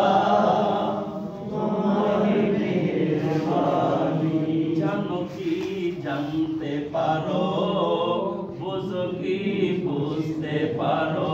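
A group of voices singing a Bengali Islamic devotional song (a hamd or naat) together in a chant-like unison, without a break.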